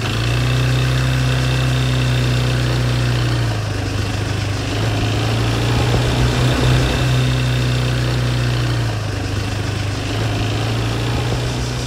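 Small motor scooter engine running steadily while riding, its pitch shifting slightly a few times as the throttle changes, with a hiss of air rushing past.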